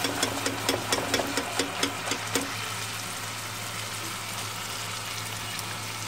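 Rose-cookie batter deep-frying in hot oil with a steady sizzle. A quick run of clicks and pops over the first two seconds or so, while the metal mould is shaken in the oil to free the cookie.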